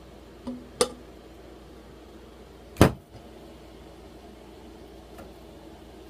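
Stainless steel saucepan and spatula knocking against hard surfaces: two light clicks about a second in, then one loud sharp clank about three seconds in as the pan is put down.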